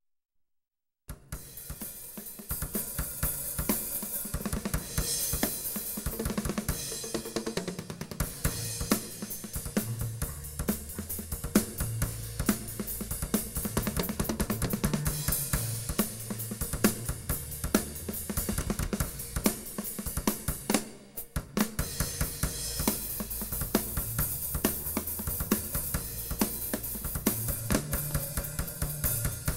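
A drum kit played live in a steady groove, with hi-hat and cymbals, snare and kick drum. Low bass notes join underneath about nine seconds in, and the playing breaks off briefly near the twenty-first second before picking up again.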